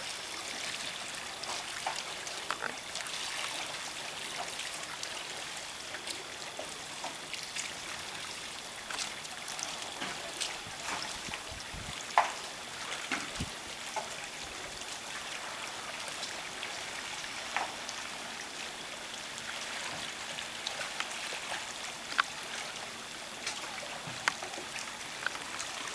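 Lake water trickling and dripping with scattered small splashes and clicks, as a kayak paddle and hull move through calm water.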